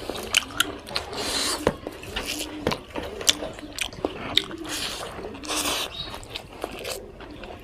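A person chewing and biting spicy pork, with irregular wet smacks and sharp clicks coming several times a second.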